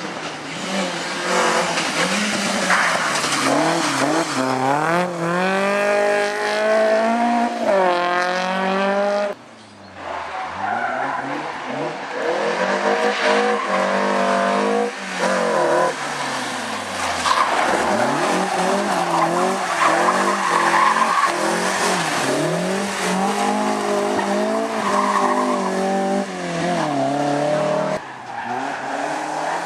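BMW M3 rally car engine revving hard, its pitch climbing through the gears and falling again on and off the throttle, with tyres squealing as the car slides. The sound drops out for a moment about nine seconds in.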